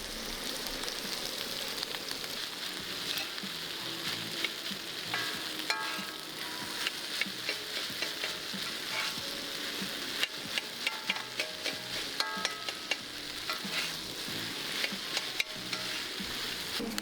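Food sizzling and frying in a hot pan, with a utensil stirring and scraping against it in irregular clicks and taps.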